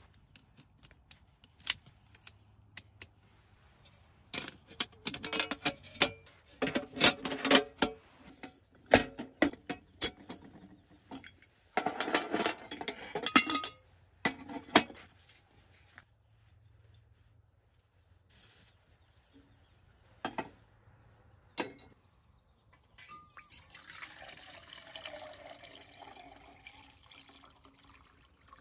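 Stainless steel camp cookware clinking and clattering as it is handled on a metal table, then water poured from a bottle into a stainless steel pot for about four seconds near the end.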